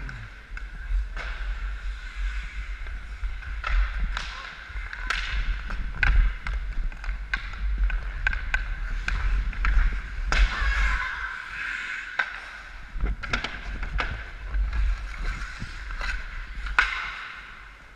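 Ice hockey play: skate blades scraping and carving on rink ice, with repeated sharp clacks of hockey sticks on the ice and puck, over a steady low rumble.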